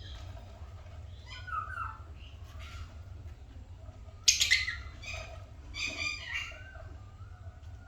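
Lovebirds chirping and squawking in short, scattered calls, with one loud, harsh squawk about four seconds in and a few more calls just after, over a steady low hum.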